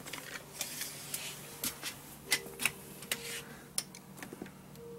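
Scattered light clicks and ticks of a steel tape measure being pulled out and handled as it is laid across a plastic tool box.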